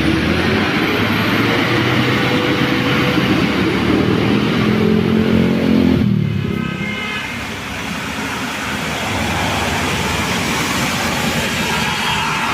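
Heavy diesel engine of a tourist bus passing close by, loud for about six seconds, then dropping away abruptly; a second vehicle's engine builds up again near the end.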